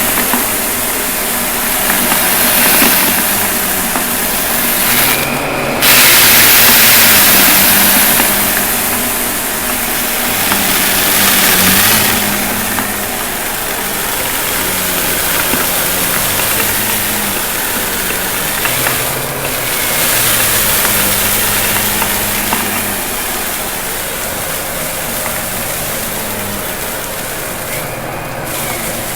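Shark vacuum cleaner running, its motor noise swelling and easing every few seconds as it works over a mess.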